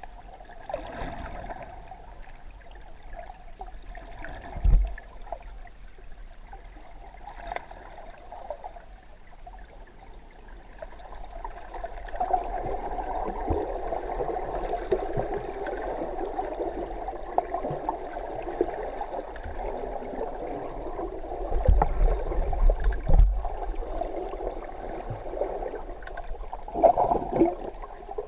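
Water gurgling and sloshing, heard muffled through a submerged camera, getting louder about halfway through, with a few low thumps.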